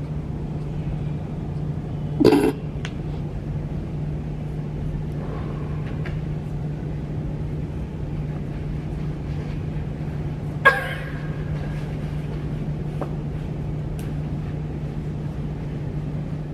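Room tone: a steady low hum with faint background noise. A short, loud noisy knock comes about two seconds in, and a sharp click about ten seconds in.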